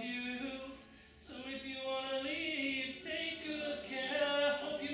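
Singing: a slow tune of long held notes, with a short break about a second in.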